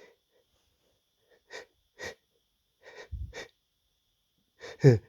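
A man's short, wheezy in-breaths as a tickly sneeze builds, several gasps a second or so apart, then a sudden loud sneeze near the end, its voice dropping in pitch.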